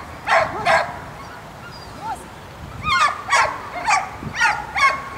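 A dog barking: two barks near the start, then a run of five more from about three seconds in.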